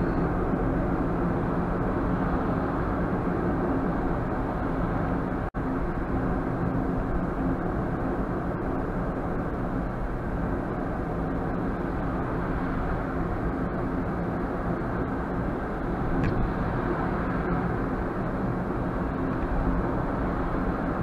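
Car cabin road and engine noise picked up by a windscreen dash cam's microphone: a steady rumble and hum while driving. It drops out for an instant about five seconds in.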